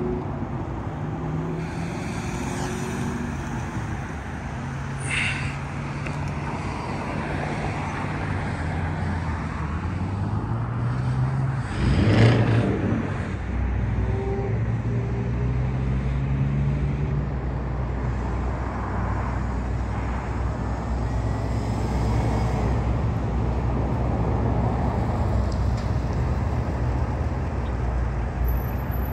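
Road traffic: vehicle engines running and passing, with one vehicle rising in pitch and passing loudly about twelve seconds in, and a brief high squeal around five seconds in.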